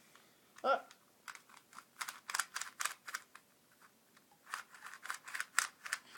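Plastic 2x2x3 cuboid puzzle being turned by hand: quick runs of clicks as its layers snap round. The clicks come in two bursts, about a second in and again near the end, with a short vocal sound just before the first.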